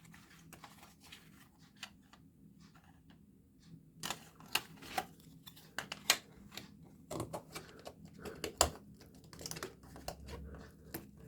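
Small plastic fridge trim parts being handled and pressed against each other in the hands, a run of irregular light clicks and taps, faint at first and louder and sharper from about four seconds in.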